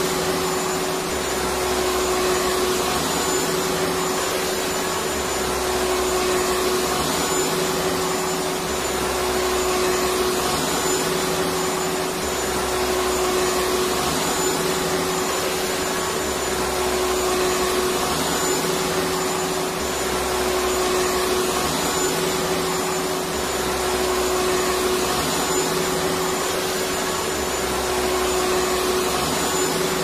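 Vacuum cleaner running steadily: a constant rush of air with an unchanging motor hum and a faint high whine.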